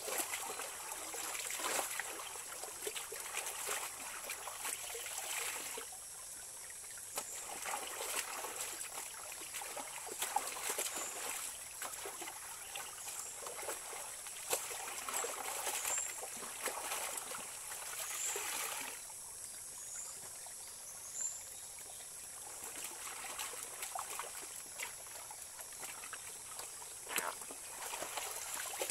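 A shallow stony stream running, with water pouring and splashing off wet laundry as it is lifted, dipped and swished by hand in the current. The splashing swells and fades several times.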